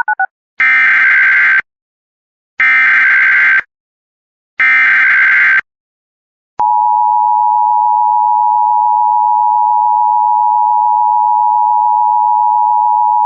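Emergency Alert System SAME header: three harsh one-second bursts of digital data tone, a second apart, that encode the coming alert. About six and a half seconds in, the EAS two-tone attention signal starts: a loud, steady, dissonant pair of tones held unbroken.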